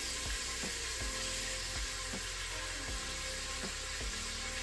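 Chicken thighs sizzling steadily in hot oil in the inner pot of an electric pressure cooker on its sauté setting, pan-searing to brown.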